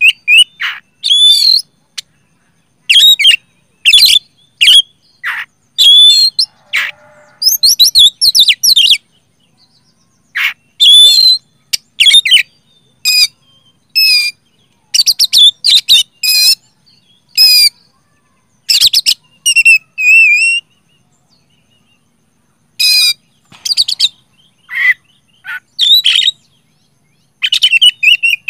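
Oriental magpie-robin in full song: loud phrases of varied whistled and sliding notes, separated by pauses of a second or two.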